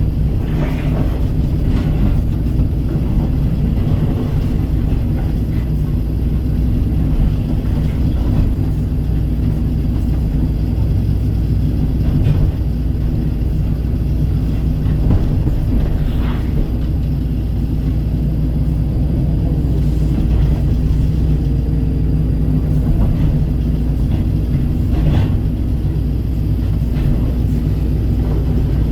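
Kobelco SK135 excavator's diesel engine running steadily under working load, with a few brief knocks from the machine at work.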